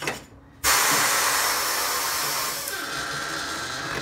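Compressed air hissing through the tyre changer's pneumatic bead breaker: a loud, steady hiss that starts suddenly about half a second in and cuts off near the end.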